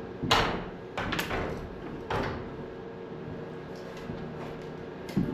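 Sharp knocks and bangs of wood being struck during demolition of old house framing. There are four, the loudest about a quarter second in and the others about one, two and five seconds in, each with a short ringing tail, over a steady low hum.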